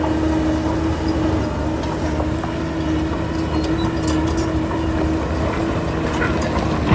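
Heavy diesel construction machinery running steadily, with a constant whine over the engine and a few light clicks and clanks.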